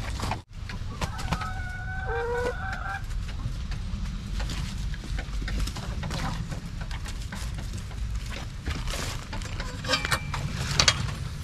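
A rooster crows once about a second in, a single crow of roughly two seconds that drops to a lower note at its end. Rustling and handling clicks run under it.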